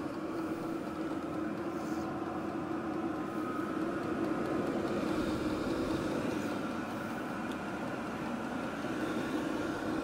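WIPPRO 8 kW all-in-one diesel air heater running on its highest setting, its blower and combustion fans making a steady hum with a higher tone over a whoosh of air, just after being turned up to full.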